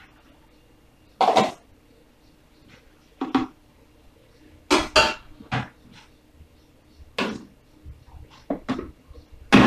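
Separate knocks and clatters of plastic cups, a spatula and the plastic blender jar being handled and set down, about eight in all with gaps between; right at the end the blender motor starts with a sudden loud rush.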